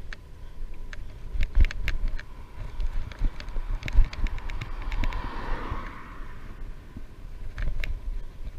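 Wind buffeting the microphone of a camera on a moving bicycle, with irregular clicks and rattles throughout. A car swells past and fades about five seconds in.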